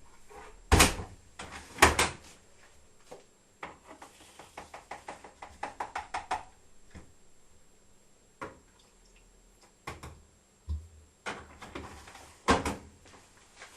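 Knocks and clicks from handling a Privileg Sensation 9415 washing machine: two loud knocks near the start, a quick run of clicks a few seconds in, then a few more knocks near the end.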